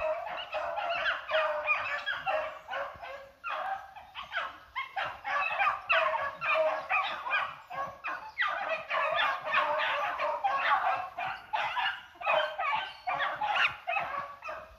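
A pack of beagles baying in full cry, many voices barking and bawling over one another almost without a break: the hounds are running a rabbit's track.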